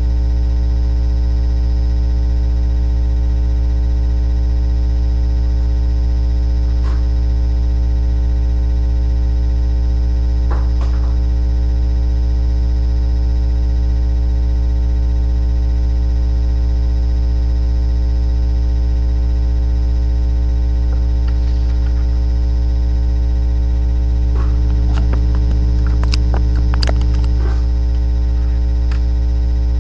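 Loud, steady electrical mains hum with many overtones, a buzz that runs unchanged. A few faint clicks come through it twice early on and in a short cluster near the end.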